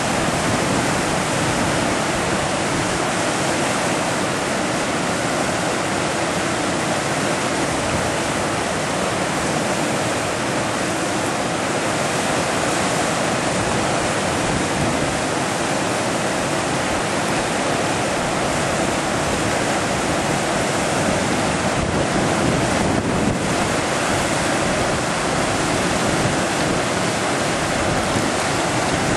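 Whitewater rapids on the Thompson River rushing in a steady, unbroken roar of churning water.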